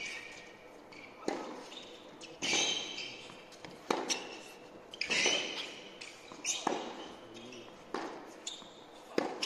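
Tennis rally on an indoor hard court: racket strikes and ball bounces trading back and forth, a sharp hit roughly every second and a half, echoing in the hall, with short squeaks of shoes on the court between shots.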